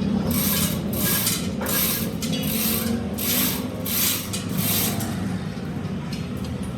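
Rhythmic rasping strokes on metal, about one and a half a second, as in hand filing or abrasive rubbing, over a steady machine hum.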